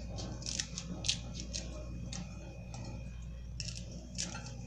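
Irregular light clicks and taps from handling and cutting smoked herring in the kitchen, about a dozen, unevenly spaced, over a steady low hum.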